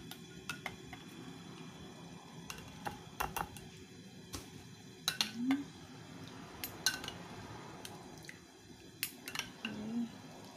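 Metal spoon clinking and scraping against a small wire mesh strainer as diced onion, drained of its water, is scooped out of it: irregular light clicks and taps.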